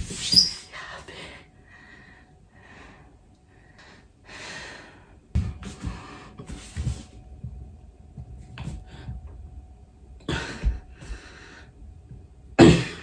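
A man's heavy, laboured breathing during push-ups: hard gasping exhales every second or two, with a loud strained gasp near the end.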